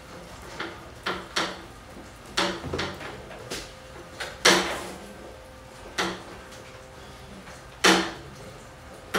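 A string of about ten irregular sharp knocks and clacks, some single and some in quick pairs, each ringing briefly at the same pitch. The loudest come about halfway through and near the end.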